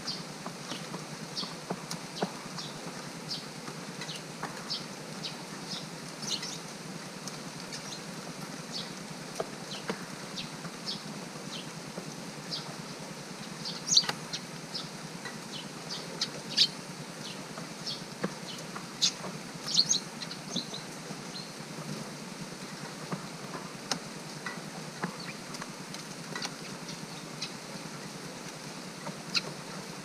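Steady rain hiss with many short, high chirps from small birds, busiest and loudest in the middle.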